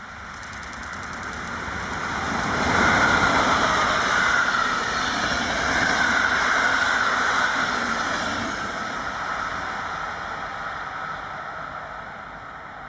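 A train passing by on rain-wet track: its rumble and hiss build up, peak about three seconds in, hold for several seconds, then fade away.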